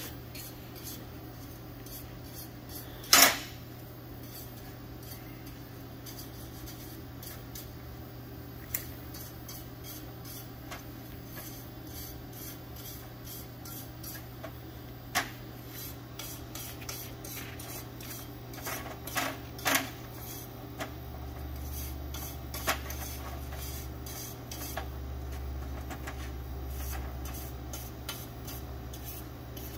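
Aluminum exhaust pipe pieces being handled and fitted at a steel welding table: scattered metal clanks and taps, the loudest about three seconds in, over a steady low hum.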